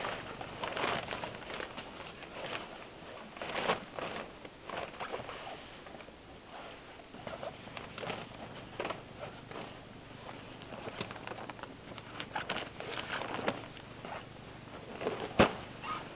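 Heavy canvas tent fabric rustling and scraping as it is handled and adjusted, with shuffling steps on the forest floor and one sharp click near the end.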